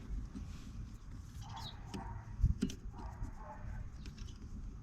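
Light clicks and taps of small metal tools being handled while a helicoil is set on its insertion tool, with faint animal calls, like a dog, in the background. A sharp knock comes at the very end.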